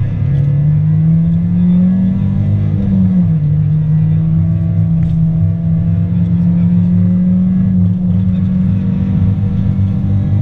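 Opel Astra GSi rally car's four-cylinder engine heard from inside the cabin, revving up under hard acceleration, dropping sharply with an upshift about three seconds in, then holding steady high revs down a straight and climbing again at the very end.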